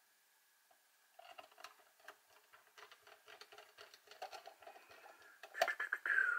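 A precision screwdriver driving small screws into the plastic body of an Instax Wide 300 camera: a run of fine, irregular clicks and scratches of the bit turning in the screw heads. There is a louder click near the end, then the start of a short squeak falling in pitch.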